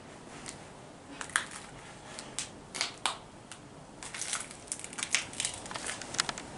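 Footsteps crunching over rubble and debris: irregular sharp crunches, a few at first and coming more often in the second half.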